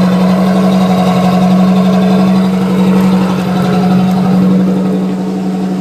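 Boat engine running steadily in gear at low throttle, a constant drone that eases off slightly near the end.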